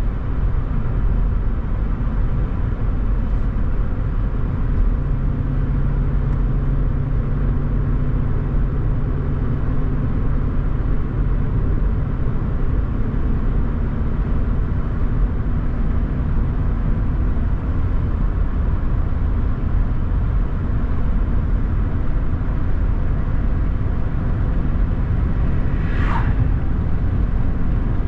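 Car driving steadily along a road: even engine and road rumble, with a brief sound falling in pitch near the end.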